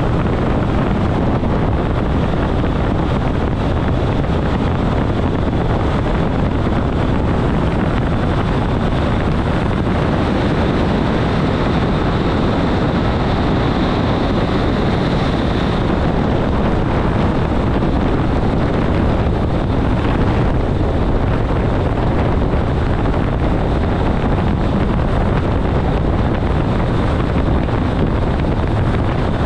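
Steady running noise of an ÖBB class 4024 Talent electric multiple unit at about 140 km/h, heard in the driver's cab: wheels on rails and rushing air. A thin high hiss comes up slightly while the train passes through a short tunnel near the middle.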